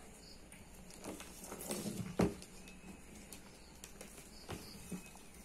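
Light handling sounds on a wooden desk: a few soft knocks and rustles as a clamp meter and its test leads are set down, the loudest knock about two seconds in.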